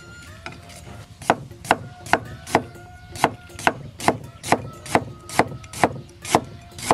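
Chinese cleaver cutting scallion and slicing ginger on a thick wooden chopping block: a steady series of sharp knocks, about two to three a second, starting about a second in.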